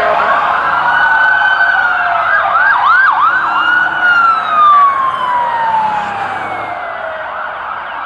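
Emergency vehicle siren sounding loudly: a rising tone, a few quick whoops about three seconds in, then a long slow fall in pitch that fades near the end.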